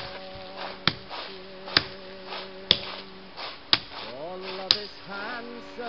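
Tent stake being hammered into the ground: about six sharp strikes roughly a second apart. A man hums a tune underneath.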